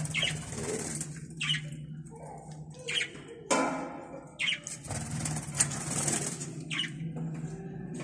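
Budgerigars chirping in short, sharp calls at irregular intervals, over a steady low hum.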